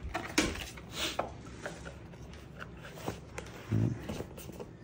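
Scattered light clicks and knocks of small hard objects being handled, with a short low hum from a man's voice about four seconds in.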